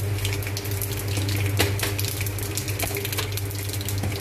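Dried red chilli and mustard seeds frying in hot oil in a steel kadai for a tempering: a dense, steady crackle with sharper pops, one louder about a second and a half in, over a steady low hum.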